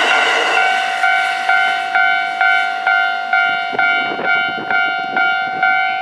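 Level-crossing warning bell ringing in a steady, even rhythm of about two strokes a second. The noise of the passing train dies away in the first half second.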